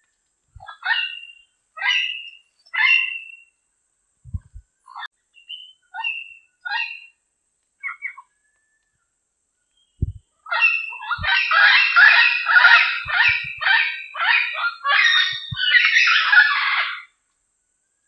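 Red-lored amazon parrot calling. It gives three loud squawks, then a run of shorter, softer calls, and about ten seconds in breaks into a fast, unbroken string of harsh chattering calls for some seven seconds.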